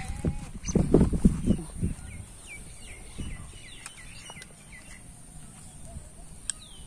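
Small birds chirping, a run of short falling chirps in the later part. About the first two seconds are taken up by louder low rustling and knocking noise.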